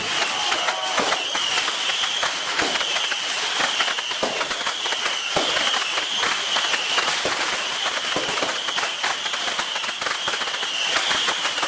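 Fireworks crackling densely and without a break: rapid pops, with a few louder bangs standing out.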